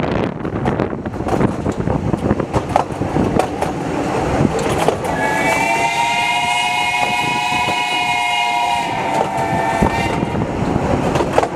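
Narrow-gauge steam locomotive's whistle blowing for about five seconds from about halfway, several close tones sounding together, over the clicking of the carriage wheels on the rail joints and a rushing noise.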